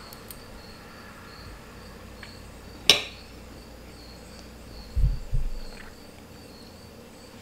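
Faint cricket chirping, evenly repeated about three times a second. A sharp click about three seconds in, and two low thumps about five seconds in.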